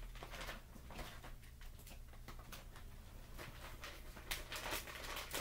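Plastic bag of shredded mozzarella rustling and crinkling as it is handled, in scattered short rustles that grow louder about four seconds in.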